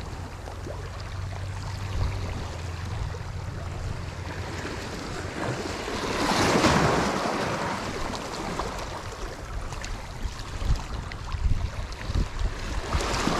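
Sea waves washing and breaking against shoreline rocks, with wind buffeting the microphone in a low rumble. One wave surges up loudest about six or seven seconds in, and the wind gusts more near the end.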